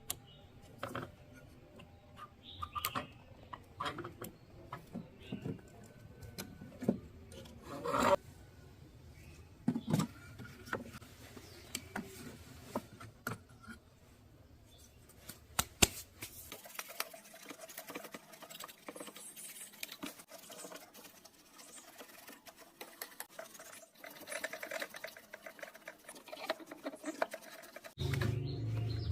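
Hands working on the parts of a cassette player: scattered clicks and taps of small plastic and metal pieces, then denser scratching and rubbing in the second half.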